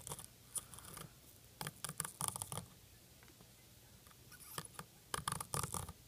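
Soldering iron tip scratching and scraping against the solder joints of an iPod Touch dock connector, worked back and forth to mix in low-melt alloy solder for desoldering. The scratches come in three short bursts of quick light strokes.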